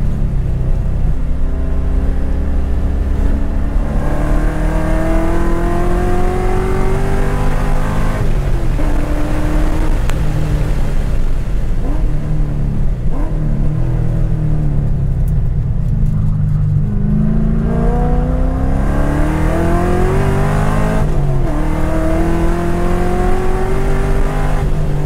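A 2010 Corvette Grand Sport's 6.2-litre LS3 V8 heard from inside the cabin, pulling hard under acceleration. Its pitch climbs steadily and then drops back several times, with a softer, lower stretch in the middle before it climbs again.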